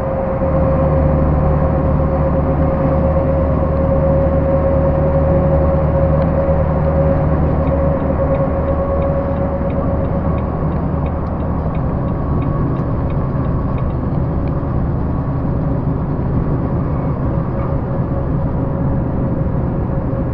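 Volvo truck's diesel engine droning steadily inside the cab at highway speed, with a steady higher whine over it; the engine note drops a little about eight seconds in. A faint regular ticking comes and goes in the middle.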